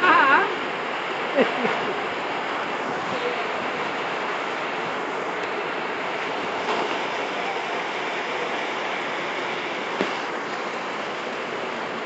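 Heavy rain pouring onto a paved street, with rainwater running across the road surface: a steady, even hiss. A short voice sounds near the start, and a single click about ten seconds in.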